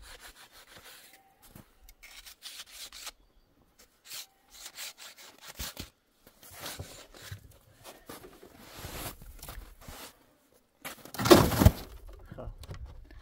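Irregular rough rasping and scraping strokes, with a louder burst of the same kind about eleven seconds in.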